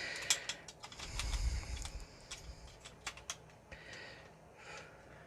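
Hard plastic toy parts clicking and tapping as pieces of an action figure are handled and fitted back together, a scatter of sharp irregular clicks with a dull handling rumble about a second in.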